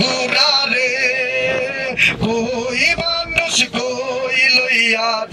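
A man singing into a handheld microphone, amplified, holding long wavering notes.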